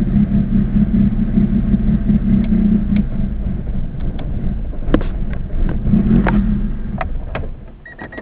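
Acura Integra's B18 four-cylinder engine at a rough, lumpy idle that sounds cammed: the symptom of an unknown fault, in a car that also won't start without gas. Near the end the engine sound drops away, leaving a few sharp clicks.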